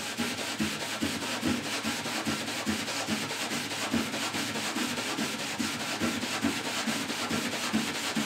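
Maroon abrasive scuff pad scrubbed in rapid back-and-forth strokes over a wet painted truck fender, wearing through the turquoise top coat so the black coat beneath starts to show for a fake patina finish.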